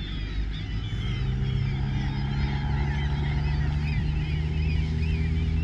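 A low, steady engine hum that comes in about a second in and grows louder, under many birds chirping and calling.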